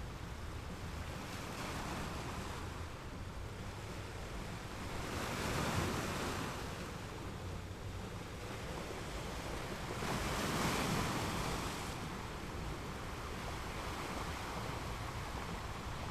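Ocean waves washing ashore, a steady rush of surf that swells twice, about five seconds apart.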